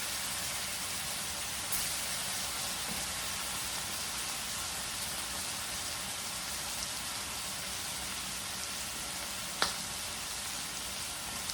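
Tri-tip steaks searing in butter in a hot stainless steel pan: a steady sizzle. A single sharp tap sounds about nine and a half seconds in.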